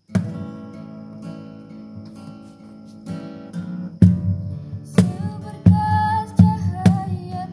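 Acoustic guitar strumming starts the song. About four seconds in, a wooden cajon (box drum) joins with deep bass strokes and sharper slaps. A woman starts singing near the end.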